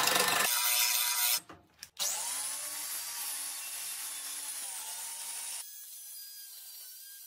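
Wood lathe with a hand gouge cutting the spinning wooden blank, loud for the first half second, then the lathe motor humming. After a break, an angle grinder mounted on a copy-turning carriage runs steadily as its disc cuts into the turning wood, becoming quieter for the last second or two.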